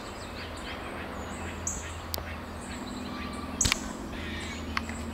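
Outdoor ambience with birds calling and chirping: a short high chirp repeats about every two seconds over fainter chirps. A few sharp clicks stand out, the loudest a little past the middle.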